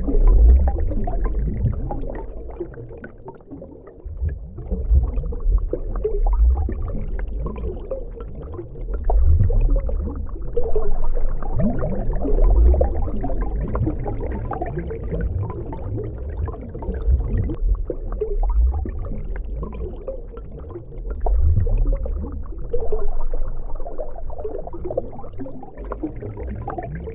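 Muffled underwater sound of swimming-pool water picked up by a submerged microphone: a deep rumble with gurgling and bubbling that swells and fades as hands move in the water.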